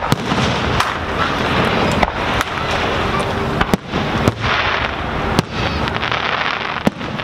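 Aerial firework shells bursting overhead: a string of sharp bangs at uneven intervals over a continuous rush of noise.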